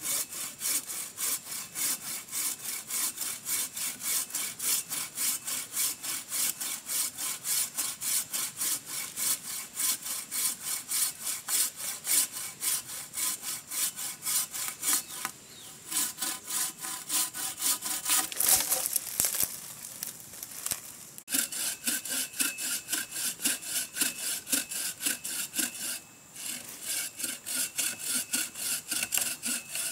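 Hand bow saw cutting through a slender tree trunk in quick, regular back-and-forth strokes, about two to three a second, with a short break in the rhythm a little past halfway.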